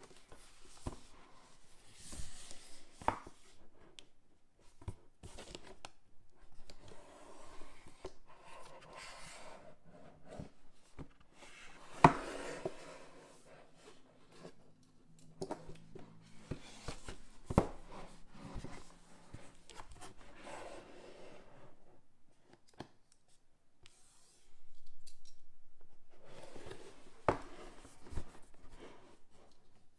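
Cardboard gift box being handled and turned over by hand: fingers rubbing and sliding on the cardboard, with several sharp taps and knocks against it, the loudest about twelve seconds in.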